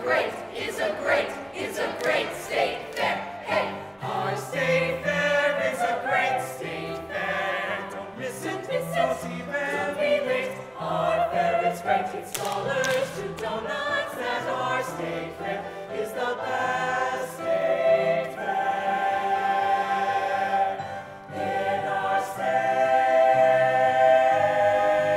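A chorus of mixed voices singing a show tune together, ending on a long held chord over the last few seconds.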